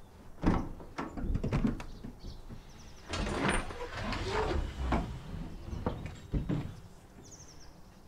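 Work van's sliding side door unlatched with a clunk and rolled open along its track, followed by a longer spell of rattling and clattering and a sharp knock later on.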